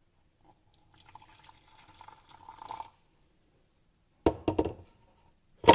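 Liquid pouring for about two seconds, growing louder toward the end, then a few sharp knocks near the end.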